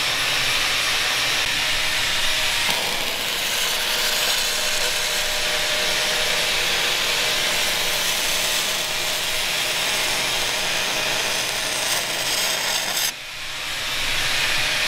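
MIG welding arc laying a bead on cast aluminum, wire fed from a spool gun: a steady hiss that cuts off about 13 seconds in. The weld is repairing a crack in a generator's cast aluminum end housing.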